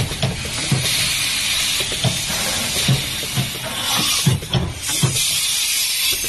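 Automatic hot foil stamping platen press running, with a steady loud air hiss and low knocks repeating irregularly about every half second to a second.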